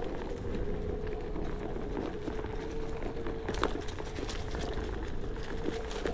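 A Onewheel electric board riding over a dirt trail: a steady whine from its hub motor over a low rumble from the tyre, with scattered clicks and crackles from twigs and leaves under the tyre, the sharpest about three and a half seconds in.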